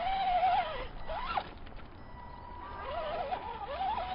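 Brushed electric motor of an Axial Deadbolt RC truck whining, its pitch swooping up and down in quick bursts as the throttle is worked over rocks.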